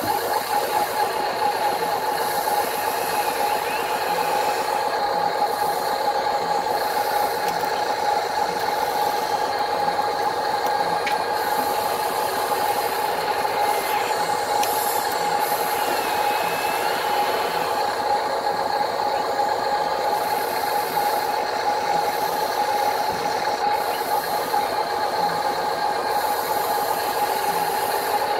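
Steady high whine over an even mechanical hum from the Huina RC excavator and dump truck, the excavator's electric motors slowly working its arm.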